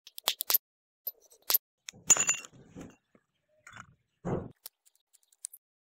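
Metal clicks and clinks from taking apart a small electric forge blower motor: the rotor with its ball bearings comes out of the motor housing. One loud clank with a short ring about two seconds in, and a duller knock a little after four seconds.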